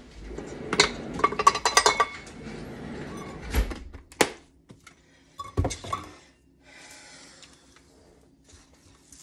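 Kitchen dishes and utensils clinking and clattering in a quick flurry, followed by a few separate sharp knocks between about three and a half and six seconds in.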